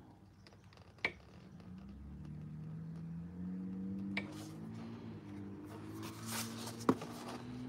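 Small sharp clicks of a paintbrush handled against a canvas and a plastic paint tray, three in all, with a short brushing hiss just before the last click. Under them runs a low hum that shifts in pitch in steps.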